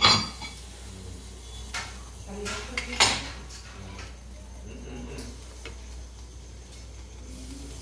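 Metal clanks of kitchenware: a sharp clank as a cast-iron sizzler plate is set down on its wooden base with gripper tongs, a smaller knock near two seconds in, and another loud metal clatter about three seconds in as the tongs and steel serving plate are handled. Faint voices murmur between the clanks.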